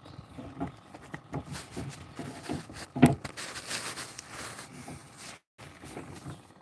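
Irregular knocks, bumps and rustles of gear being handled on a kayak, with one sharp knock about three seconds in. The sound cuts out for a moment just after five seconds.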